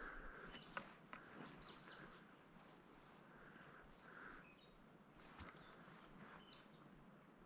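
Near silence: faint outdoor ambience with a few faint, high, short bird chirps and the odd soft click of a footstep.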